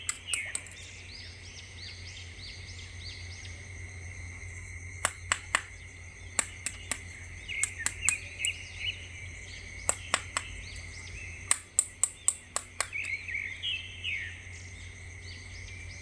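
Birds chirping in short calls over a low steady hum, with clusters of sharp clicks and taps, the loudest sounds, coming in quick runs from about a third of the way in until near the end.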